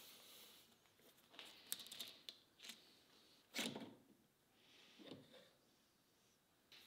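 Faint metal clicks and clinks of hand work on a lathe's compound slide: a wrench loosens the handwheel nut, and the handwheel and dial are slid off the lead screw shaft. The sounds come as a few scattered short knocks, the loudest a little past halfway.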